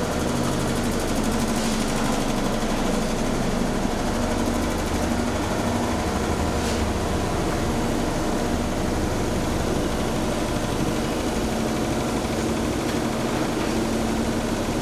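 A steady, unchanging engine-like drone with a low hum.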